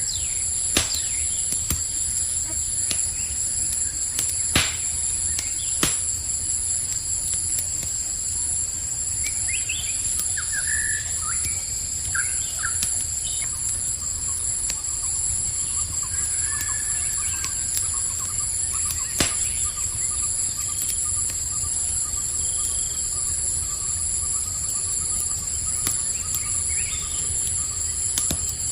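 Crackling campfire with a few sharp pops, over a steady, high-pitched chorus of night crickets. A few short bird chirps come through around the middle.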